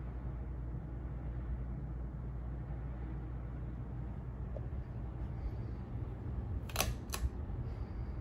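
CEC Georgian 36-inch ceiling fan, model 303D, running steadily with a low hum. About seven seconds in come two sharp clicks a third of a second apart.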